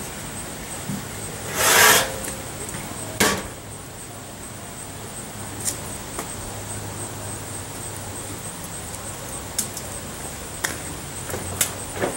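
Large metal stock pots being handled and set down: a loud scraping clatter about two seconds in, a sharp metal clank a second later, then a few light knocks.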